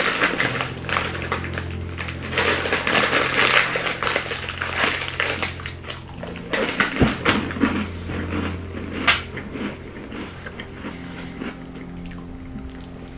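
Crinkling plastic snack wrapper as small chocolate-filled biscuits are shaken out of the pouch, followed from about six seconds in by crunching as the biscuits are chewed close to the microphone. A steady low hum runs underneath.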